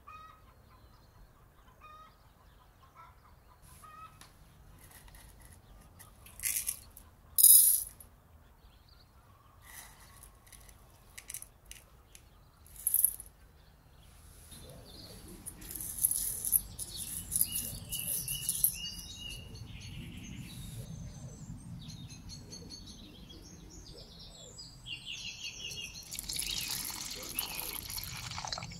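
Miniature steel cookware being handled, with a few sharp metal clinks as red lentils are scooped into a tiny steel pot; the loudest clink comes about a quarter of the way in. From about halfway, birds chirp in the background, and near the end water is poured into the little pot of lentils.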